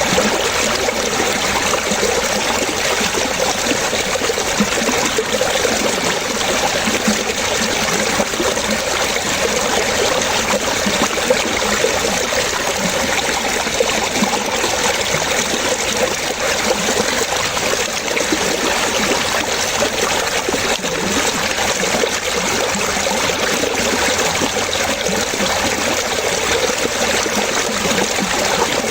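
Running water trickling and splashing steadily, with no break or change.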